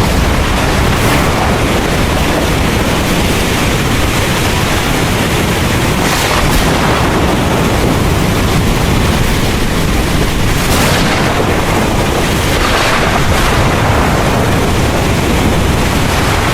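Heavy rain pouring steadily with deep thunder rumbling underneath, and a few brief surges of louder rain noise.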